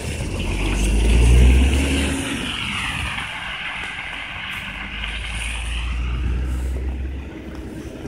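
Route minibus passing close and driving off on a wet road: engine rumble and tyre hiss on wet asphalt, loudest about a second and a half in, with the hiss dipping in pitch as it goes by. A second swell of low rumble follows later.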